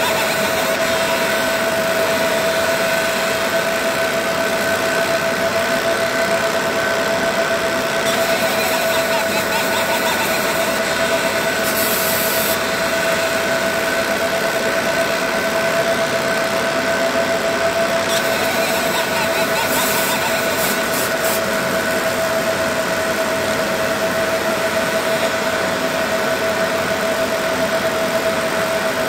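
Laser engraver running as it engraves a pumpkin: a steady hum with a constant whine, and a brief faint hiss about twelve seconds in and again around twenty seconds.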